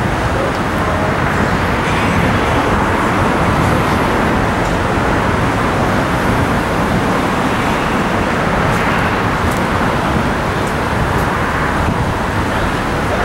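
Steady, loud outdoor rushing noise with an uneven low rumble underneath, like road traffic, and no single distinct event.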